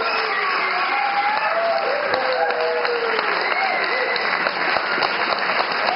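Audience applauding steadily, with voices whooping and calling out over the clapping.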